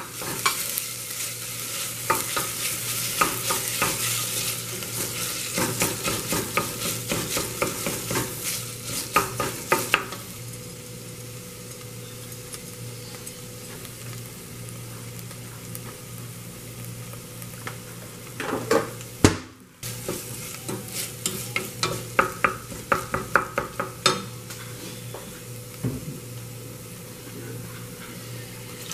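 Diced vegetables and tomato paste sizzling in oil in a stainless steel saucepan while a wooden spoon stirs and scrapes against the pan bottom in quick strokes. The stirring comes in two spells, the first ten seconds or so and again for several seconds past the middle, with the sizzle running on between them over a steady low hum.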